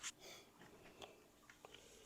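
Near silence: room tone with a few faint handling clicks.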